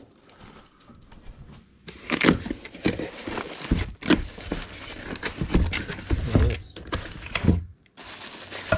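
Cardboard box packing being rummaged by hand: plastic wrap crinkling and cardboard flaps rustling, with a few dull knocks. It starts about two seconds in.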